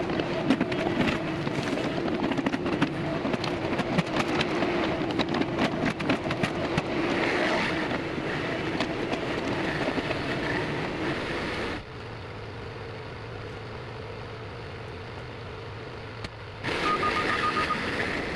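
RK37 tractor engine running steadily under load while digging, with scraping and clanking of the bucket in rock and clay. About twelve seconds in, it drops suddenly to a quieter engine hum, and it comes back up near the end.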